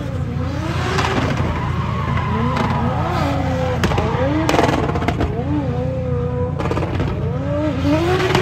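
Drift car's engine revving up and down hard while its rear tyres screech through a sustained slide, with a few sharp cracks about halfway through.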